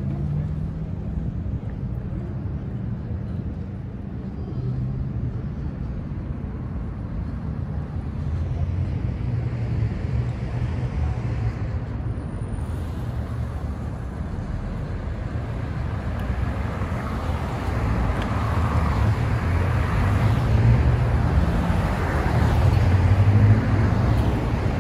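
Road traffic on a busy multi-lane city avenue: a steady rumble of passing cars, swelling louder in the last several seconds as a group of cars approaches.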